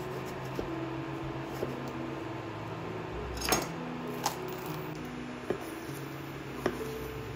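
Kitchen knife cutting a bell pepper on a wooden chopping board: separate knocks of the blade on the board about once a second, with a louder crack about halfway through as the pepper is broken open by hand. Background music plays throughout.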